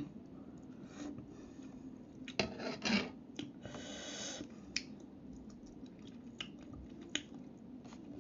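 Close-up eating sounds of a person chewing and slurping noodles: wet mouth noises with scattered small clicks, and a short hissing slurp about four seconds in.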